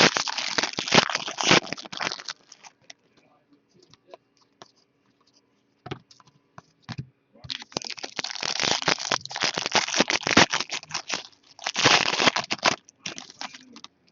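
Foil trading-card pack wrappers being crinkled and torn open, with cards being handled, in two busy stretches separated by a few seconds of near quiet.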